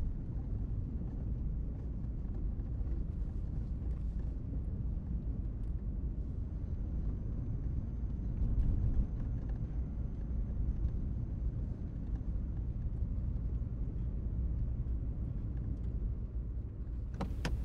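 Car heard from inside the cabin while driving over a rough dirt track: a steady low rumble of engine and tyres with a few faint knocks, the loudest about nine seconds in.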